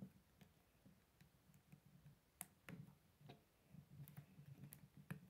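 Faint, scattered clicks of plastic K'nex pieces being handled, as a connector is picked up and pushed onto the end of a rod.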